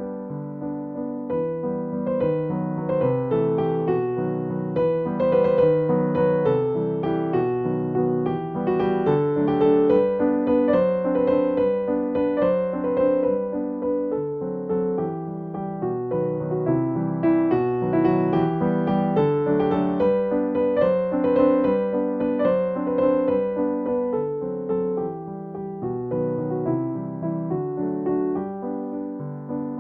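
Background music: a solo piano or electric piano playing a gentle melody over chords.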